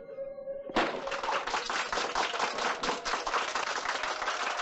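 A crowd clapping, starting abruptly about a second in and going on steadily as a dense patter of many hands.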